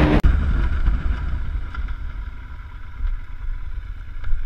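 A motorcycle engine idling with a steady low rumble, after a brief burst of highway wind and engine noise that cuts off abruptly.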